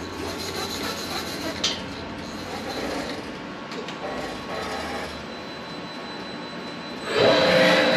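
Sunnen SV-30 CNC vertical hone running its honing cycle in a worn, out-of-round VW cylinder: a steady rasping scrape of the honing stones on the bore, with a faint high whine. About seven seconds in, a louder steady machine hum with a pitched tone comes in.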